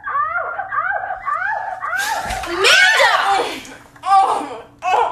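A voice making quick rising cries, about three a second, then a loud, longer shriek about two seconds in, and two short cries near the end.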